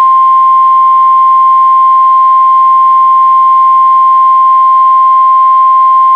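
NOAA Weather Radio warning alarm tone: a single loud, steady tone of about 1050 Hz held without a break. It is the attention signal that announces a warning message is about to follow.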